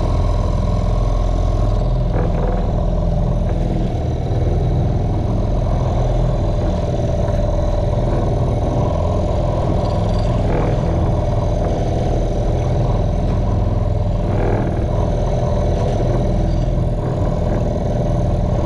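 Small fishing boat's outboard motor running steadily at an even pitch.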